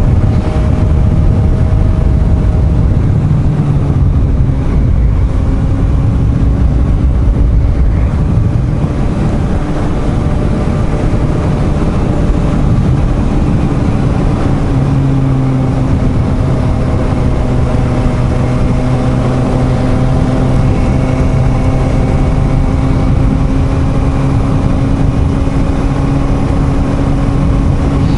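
Suzuki GSR750's inline-four engine running at a steady cruise, its pitch easing slightly about halfway through, with wind rumbling on the helmet microphone.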